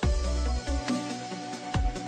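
Electronic background music: a deep bass line comes in at the start, under steady synth tones and drum hits about once a second.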